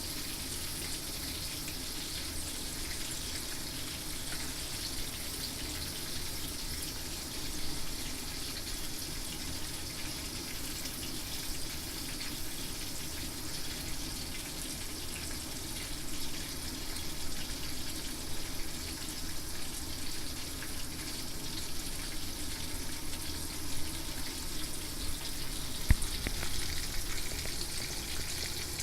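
Horse mackerel frying in hot oil: a steady sizzle, with one sharp click near the end.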